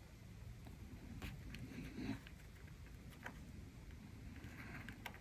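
Faint handling of cardstock: a few light taps and rustles as a small paper die-cut is placed and pressed onto a card front.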